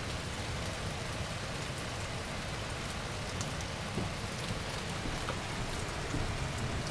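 Heavy downpour, steady rain with scattered sharp hits of individual drops close by.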